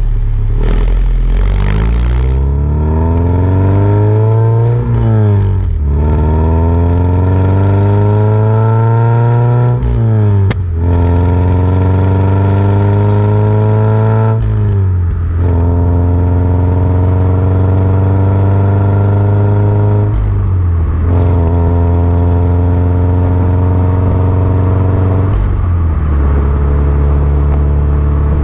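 Subaru BRZ's FA20 flat-four running through an Ace Anaconda header, catless front pipe and Ace Laguna 90 cat-back exhaust, accelerating through the gears. The engine note climbs in pitch and drops back at upshifts about five, ten and fifteen seconds in, then rises more gently with brief dips around twenty and twenty-five seconds.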